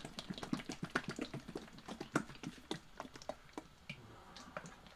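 Irregular light taps and clicks of small objects being handled and set down on a workbench, several a second at first, then sparser.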